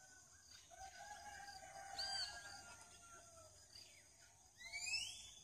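Faint birdsong: thin whistled calls, with an arching note about two seconds in and a couple of rising whistles near the end.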